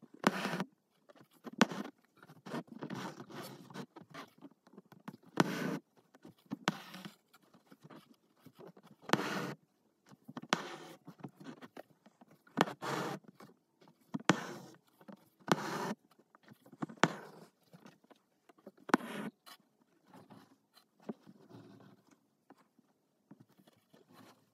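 A needle and thick 12-strand embroidery floss being pulled through fabric and under stitched spokes: short scratchy swishes, roughly one every second or two, some louder than others.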